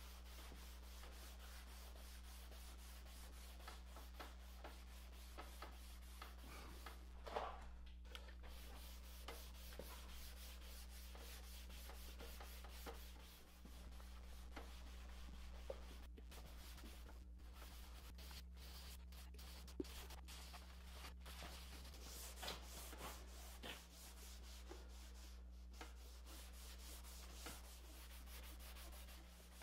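Faint rubbing of a stain-soaked cloth rag wiped back and forth over a western red cedar strip kayak hull while applying alcohol-based stain, with a few small knocks, over a steady low hum.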